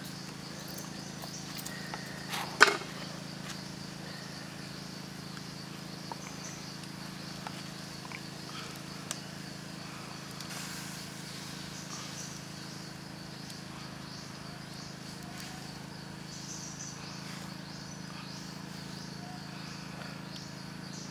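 Insects chirring steadily in a high band over a steady low hum, with one sharp knock about two and a half seconds in.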